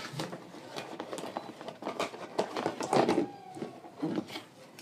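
Cardboard box and packaging of an aquarium top filter being opened and handled: an irregular run of rustles, scrapes and light knocks.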